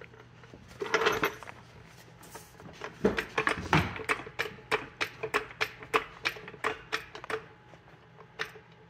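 Hydraulic floor jack being worked, with a handling clatter about a second in, then a steady run of short metallic clicks about three a second as the handle is pumped.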